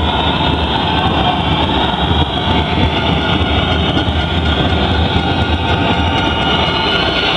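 Loud, steady din of a crowd of spectators in an indoor sports hall, with no single event standing out.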